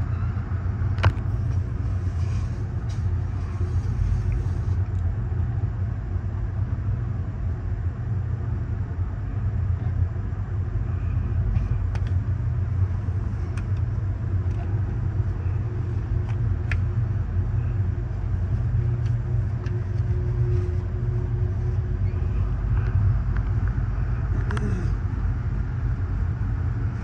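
Steady low rumble of an Amtrak Superliner coach rolling along the track, heard from inside the car, with occasional sharp clicks and knocks.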